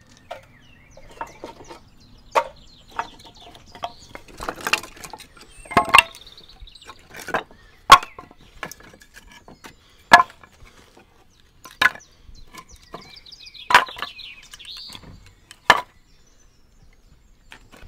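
Split firewood pieces knocking together as they are pulled off a woodpile and stacked in the arms: a string of sharp wooden clacks, roughly one every second or two.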